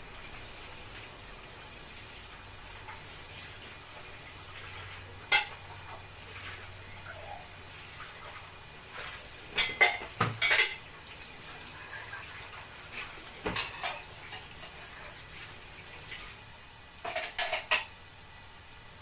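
Dishes and utensils clinking and clattering at a kitchen sink as bowls and a basket are washed and handled, in short bursts about four times, over a steady hiss.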